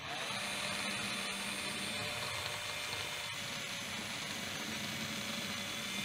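Cordless drill running at a steady speed, its chuck nose rubbing against a steel file.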